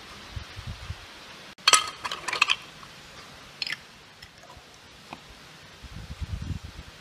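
Dishes or glassware clinking: a quick run of sharp chinks about two seconds in and a shorter one near the middle, with dull low knocks of handling at the start and near the end. A steady hiss under the first second and a half breaks off suddenly.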